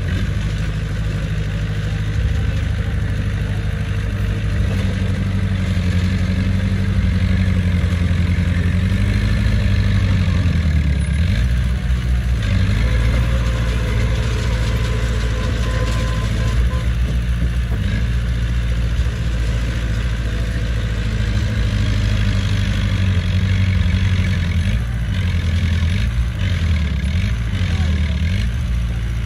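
Heavy diesel engine of earthmoving equipment running steadily. Its pitch dips and rises a few times about ten seconds in and again near the end as the throttle changes.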